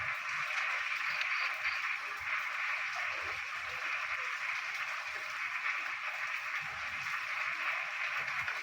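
A dense chorus of many frogs calling at once, merging into a steady, unbroken wall of sound, with rain falling.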